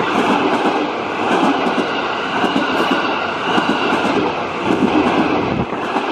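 Ex-JR East 205-series electric commuter train passing close by at speed. Its wheels clatter over the rails under a steady high whine, and the low rumble drops away suddenly near the end.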